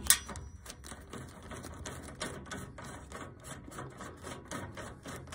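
Screwdriver backing out the mounting screw of a furnace control board: an irregular run of small clicks over a low steady hum.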